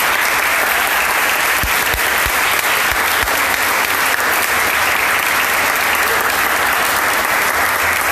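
Audience applauding, a steady sustained round of clapping.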